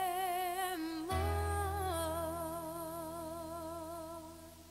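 Closing of a hymn: singing holds the last note with a wavering vibrato over an accompaniment. A final chord with a deep bass note comes in about a second in and fades away near the end.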